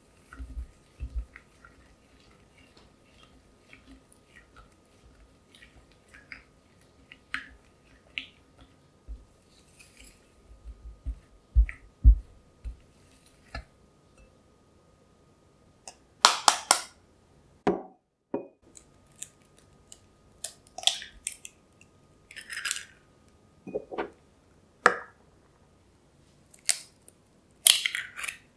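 Silicone spatula stirring and scraping thick melted chocolate and sugar in a glass bowl, with soft low knocks. From about halfway, a run of louder, sharp knocks and clicks against the glass, with an egg cracked open near the end.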